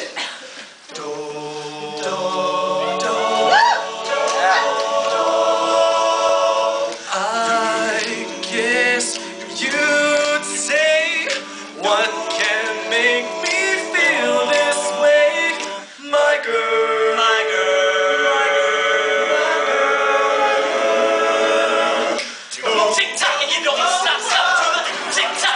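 All-male a cappella group singing in layered vocal harmony, with no instruments.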